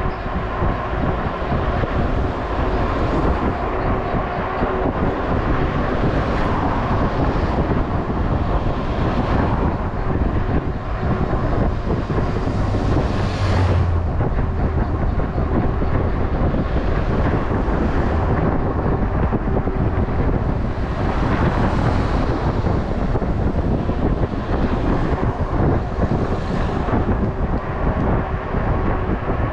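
Wind rushing over the microphone with tyre and road rumble from a moving electric scooter, a faint steady tone running underneath. The noise swells louder about 13 and 22 seconds in.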